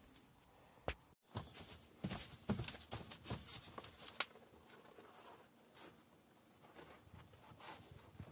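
Light rustling and scraping with scattered soft knocks as a sheet of cork is handled and pressed onto a van's wall.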